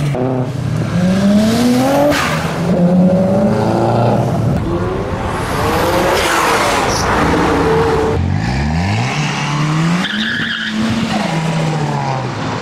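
Turbocharged performance car engines revving and accelerating hard in a run of short clips, the engine pitch climbing and falling again and again, with a brief high whistle about ten seconds in.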